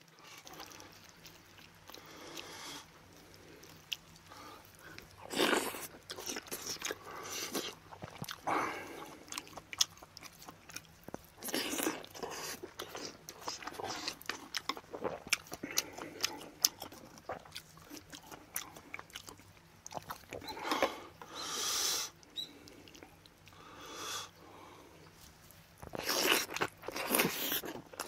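A man eating soup, rice and boiled pork up close to the microphone: chewing and biting, with small clicks of a spoon and chopsticks against the bowls and stone pot, and louder bursts of eating every few seconds.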